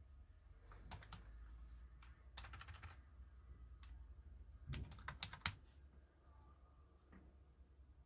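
Faint computer keyboard keystrokes: a short PIN typed at a Windows sign-in prompt in a few quick groups of taps, the loudest pair of presses about five and a half seconds in.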